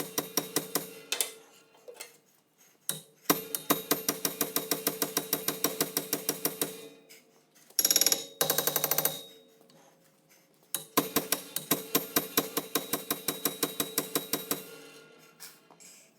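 Rapid ringing metal-on-metal hammer blows, several a second, struck on a hub puller's end to drive a Jensen Interceptor rear hub off its shaft. They come in runs with short pauses, and a brief louder flurry about eight seconds in. The hub is still seized and has not yet cracked free.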